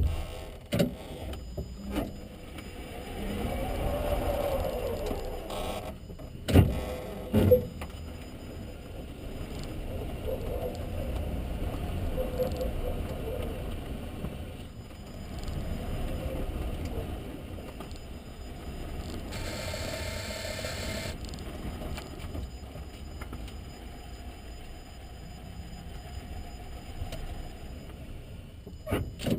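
Renault Zoe Q210 electric car running, its drive motor giving a tone that rises and falls over a low rumble. A few sharp knocks come near the start and twice about a third of the way in.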